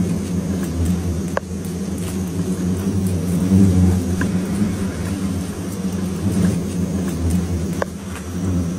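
Swarm of hornets buzzing in a dense, steady drone, stirred up as their large paper nest is torn open. A few faint ticks sound over the drone.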